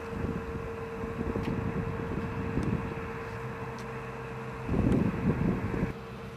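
Wind buffeting the microphone in uneven low gusts, with a strong gust about five seconds in, over a faint steady hum.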